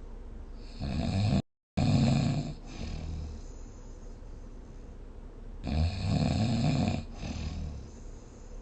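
A person snoring: two loud snores about five seconds apart, the first cut by a split second of dead silence.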